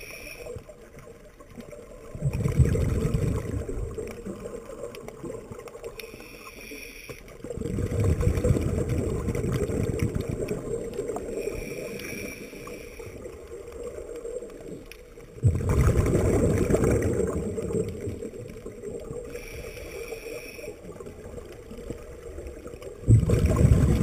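Scuba diver breathing through a regulator underwater: a short whistling hiss from the demand valve on each inhale, then a loud rush of exhaled bubbles. The cycle repeats four times.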